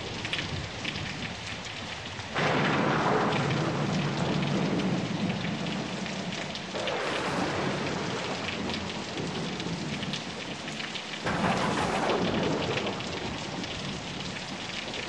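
Steady rain with three rolls of thunder, about two and a half, seven and eleven seconds in. Each comes in suddenly and loud, then dies away slowly.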